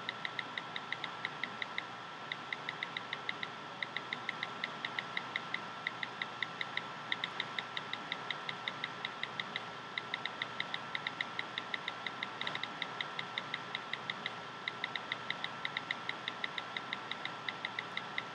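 Rapid, even ticking, about six ticks a second, in runs broken by short pauses, over a faint steady high tone and hiss.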